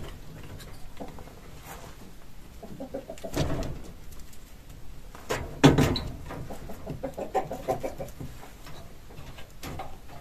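Domestic birds calling in low, throaty phrases in two stretches, about a third of the way in and again past the middle. A single sharp knock, the loudest sound, comes just before the second stretch.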